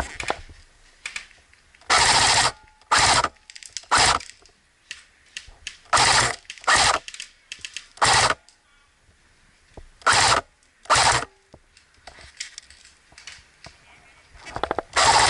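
Airsoft electric guns firing short full-auto bursts: about nine rapid bursts of half a second or less, with scattered single clicks and knocks between.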